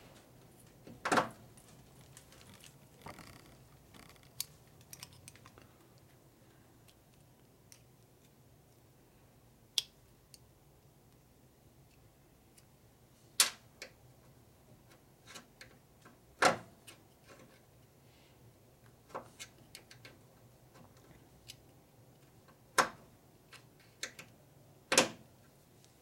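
Small metal parts and a small screwdriver clicking and clinking against a steel lift table and against each other while old, hardened rubber seals are picked out of oil-line fittings. Sharp single clicks come at irregular intervals, with quiet handling in between.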